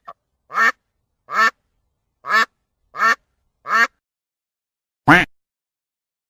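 Herring gull calling: five short calls less than a second apart, then one louder call about five seconds in.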